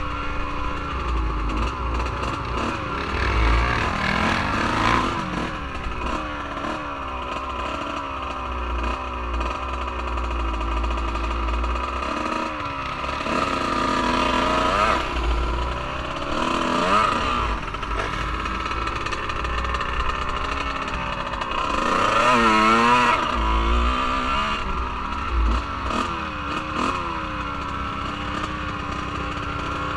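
Off-road vehicle engine running under load, its pitch rising and falling again and again with the throttle. The revs climb highest about two-thirds of the way through. Patches of low rumbling buffets come and go.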